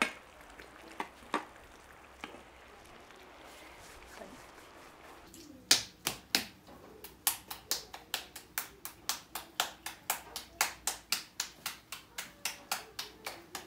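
Hands patting corn masa into a tortilla by hand: a steady run of sharp slaps, about three a second, starting about six seconds in. A few light clicks come before it.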